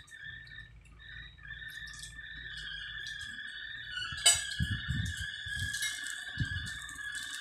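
Chewing and small mouth sounds of people eating at a table, with a sharp clink about four seconds in and a few dull knocks after it. A steady high-pitched drone runs underneath.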